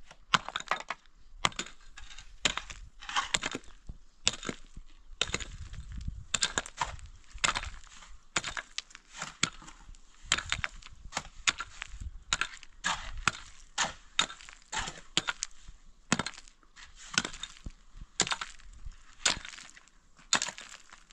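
A hand pick striking a pile of loose broken stone over and over, each blow a sharp crack and clatter of rock, about two a second in an irregular rhythm.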